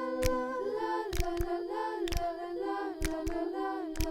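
Background music: held, sung-like notes that glide from pitch to pitch, over light percussive clicks.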